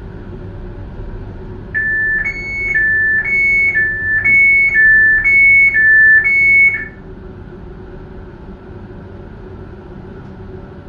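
Two-tone electronic warning signal, a lower and a higher tone alternating about once a second for five rounds before cutting off, over the steady running noise of a moving train.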